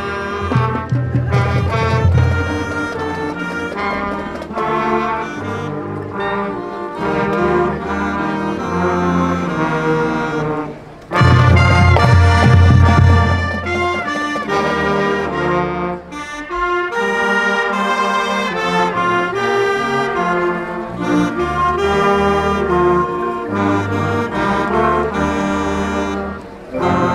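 A marching band's brass section, trombones and trumpets over a heavy low end, playing a tune together. It breaks off briefly about eleven seconds in and comes back louder.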